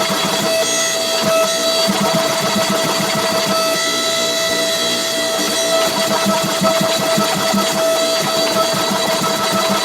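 Forging machinery running, with fast, closely spaced knocks over a steady high hum, as hot stock is worked between forging dies.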